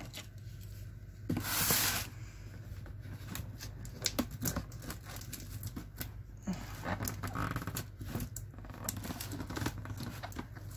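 A large cardboard shipping box being opened: a loud rip of packing tape about a second and a half in, then scraping, taps and rustling as the cardboard is handled.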